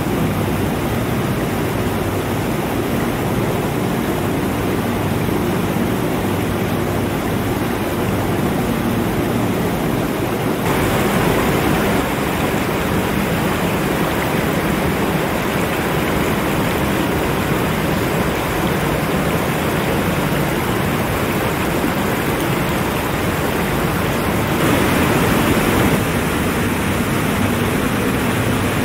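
Steady rush of water from an 18 m tiered waterfall, a dense unbroken roar. It becomes louder and brighter abruptly about eleven seconds in and again about twenty-five seconds in.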